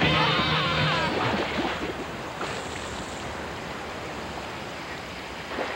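Steady wash of flowing river water, a cartoon sound effect. The tail of the music dies away about a second in.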